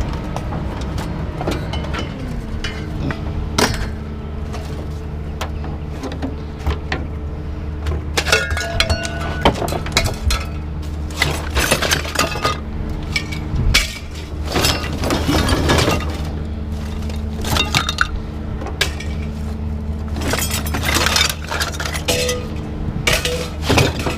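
Hand-dismantling of scrap: repeated metal clinks, knocks and rattles of parts being struck and pulled apart, over a steady low hum.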